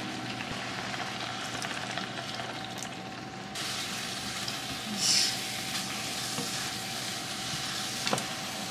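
Food sizzling as it fries in a pan on the stove, with a louder surge of sizzling about five seconds in and a short click near the end.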